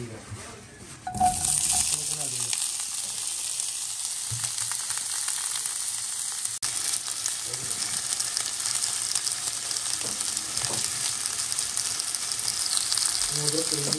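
Chopped vegetables and meat frying in butter in a frying pan: a loud, steady sizzle that starts abruptly about a second in.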